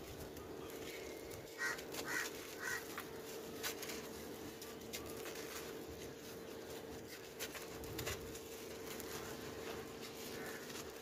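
Dry sand-cement chunks crumbled and crushed by hand into a tub: gritty crunching and trickling grains with scattered crackles, over a steady faint hum. About two seconds in, a bird calls three times in quick succession, louder than the crumbling.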